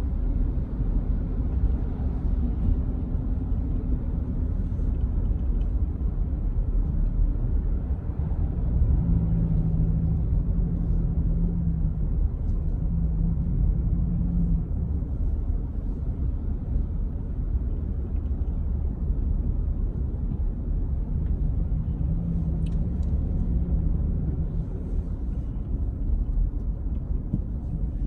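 Vehicle driving, heard from inside the cab: a steady low road and engine rumble. An engine note hums up over it about a third of the way in for several seconds, and again briefly near the end.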